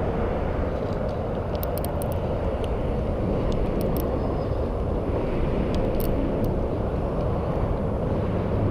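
Steady rumble of road traffic passing on a highway overhead, with a few faint light clicks.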